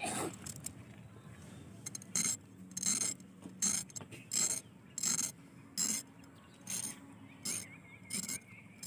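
Spiny gourd (kakrol) skin being scraped against the blade of a boti: a run of short rasping strokes, about three every two seconds, starting about two seconds in.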